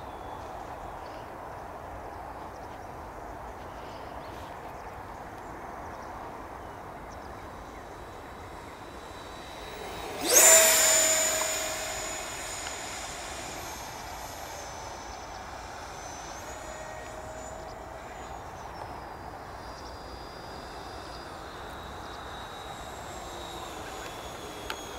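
Electric ducted fan of an Arrows Hobby BAE Hawk RC jet whining faintly as it flies. About ten seconds in it makes a close, fast flyby: the whine swells suddenly, drops steeply in pitch as it passes, and fades away over a couple of seconds.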